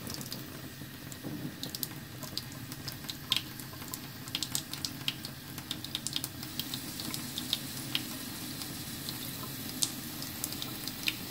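Tap water pouring into a small glass aquarium, steady splashing and bubbling with many small pops, as the two overflow tubes drain into the sink below.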